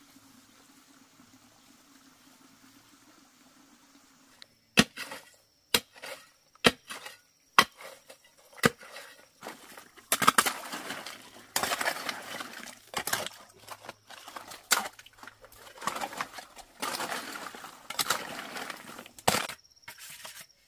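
Sharp knocks, about one a second, starting about five seconds in, followed by a run of longer noisy scrapes with more knocks among them.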